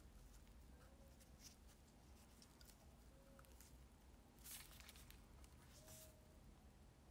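Near silence, with faint handling sounds of small lighter parts in nitrile-gloved hands: a few soft clicks and one brief scrape about four and a half seconds in.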